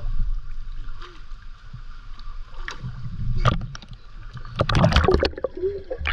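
Swimming-pool water splashing and gurgling close to the microphone as a small child floats and paddles, with a louder flurry of splashes about five seconds in.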